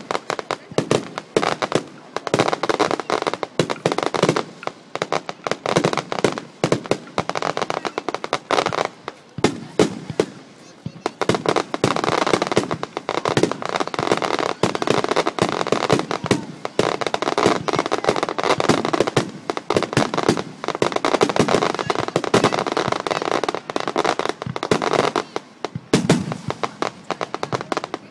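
Fireworks display: aerial shells bursting one after another with crackling, a dense barrage of bangs that eases for a moment about a third of the way through before building again.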